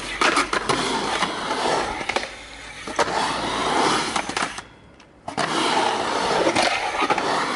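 Skateboard wheels rolling over a concrete half pipe, with sharp clacks of the board and trucks striking the steel coping. About two-thirds of the way in the rolling briefly drops away, and a sharp clack ends the lull.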